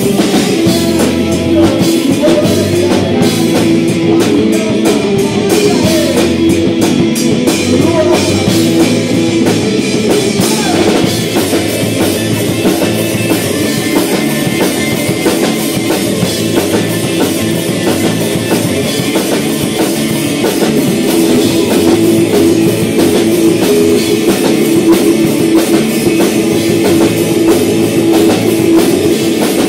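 A rock band playing live: electric guitars, bass guitar and drum kit, loud and unbroken.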